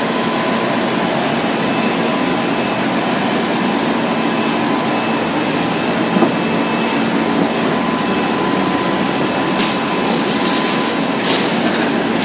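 Steady whir of a running automatic mung bean cake frying line, its electric motors and conveyor going without a break, with a few sharp clicks near the end.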